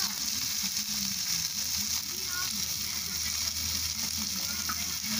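Beef shank pieces searing in hot oil on a disco de arado (plough-disc griddle): a steady sizzling hiss.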